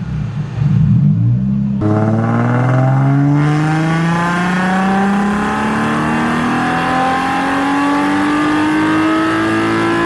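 Nissan 350Z's 3.5-litre V6 on a chassis dyno: running steadily for about two seconds, then making a full-throttle pull, its pitch climbing steadily and smoothly through the rev range to the end.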